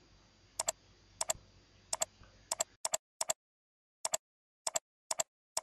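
Computer mouse button clicking in quick double clicks, about ten pairs in a row at uneven gaps of roughly half a second.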